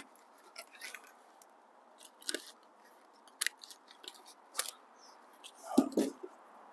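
Packaging being handled and pulled off a new bicycle: scattered small clicks and plastic crinkles, with a louder double knock about six seconds in.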